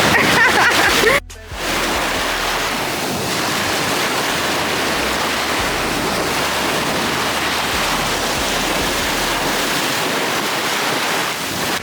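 A steady, even wash of sea and wind noise at the beach, with brief voices in the first second before a sudden cut.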